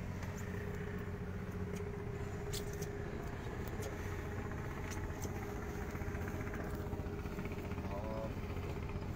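A boat's outboard motor running steadily at low speed: an even low hum with a steady mid-pitched tone over it. A few faint clicks come and go over it.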